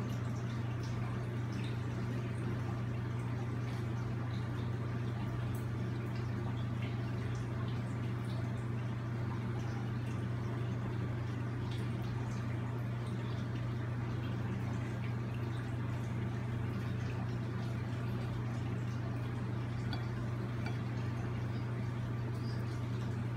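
Steady low hum of background room noise, with faint, irregular small clicks of a tegu lizard eating chopped fruit from a plate.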